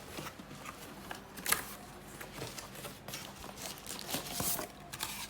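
Packaging being handled while unboxing an appliance: scattered light clicks and brief rustles of cardboard and plastic, the sharpest click about a second and a half in.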